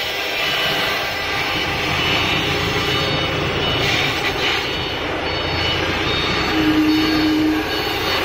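CNC router spindle running at speed while its small bit cuts a polystyrene foam block: a steady mechanical noise with a faint whine over cutting hiss, and a short low hum a little before the end.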